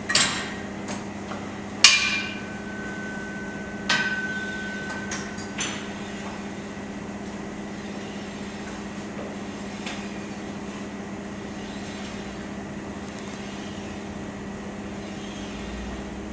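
Gym weights clanking: several sharp metallic clanks in the first six seconds, two of them ringing on briefly, over a steady low hum.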